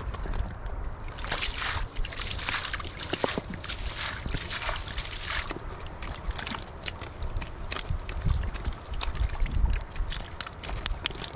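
Sloshing and splashing in shallow muddy water, in several bursts through the first half, with scattered sharp clicks throughout.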